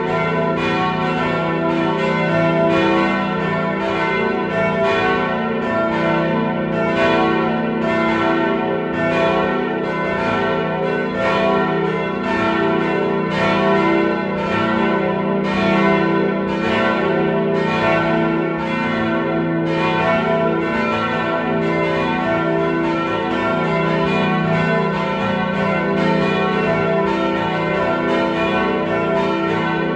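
Full peal of a church's four swinging bells, tuned e, f-sharp, a and b, the oldest cast in 1475. The strokes fall about once a second and overlap into a steady, continuous ringing.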